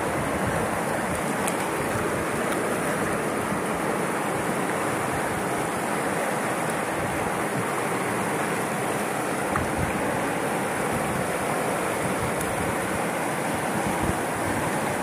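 Shallow water flowing over rocks, a steady rush with no breaks.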